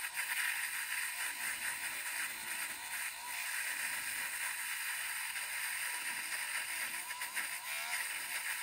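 Dremel rotary tool spinning a stainless steel wire brush against a laser-engraved brass stamp face: a steady motor whine under a brushing hiss, as it smooths the sharp engraved edges and scrubs off soot left by the laser.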